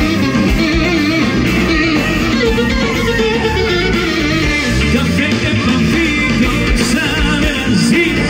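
Live Greek folk dance band playing through a PA: a clarinet plays the lead over electric guitar, bass and drums. A male singer sings into a microphone in the latter part.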